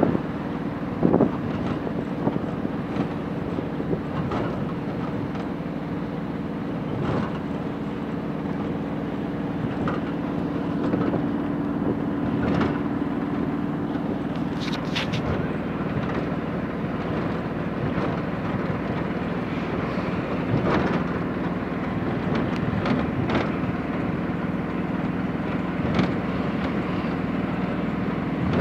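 Motor vehicle riding along at steady speed, heard from on board: a constant engine hum under wind and road noise, with a few brief knocks.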